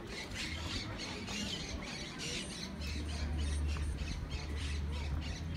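Birds squawking in a run of short, repeated calls, over a low steady rumble that grows louder about halfway through.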